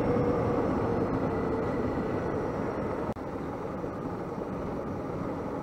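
Suzuki DR650 single-cylinder four-stroke engine running steadily while riding a dirt road, mixed with a steady rush of wind and road noise. The sound drops out for an instant about three seconds in and runs a little quieter afterwards.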